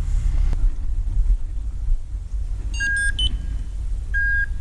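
Low rumble of wind and movement on a body-worn camera microphone, with short electronic beeps about every second and a half starting near the middle.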